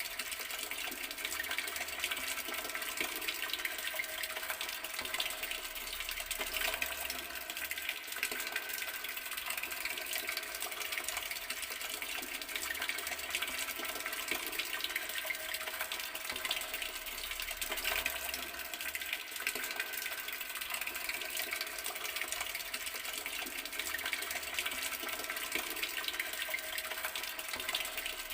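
Garden water tap running steadily, a continuous stream of water with no breaks.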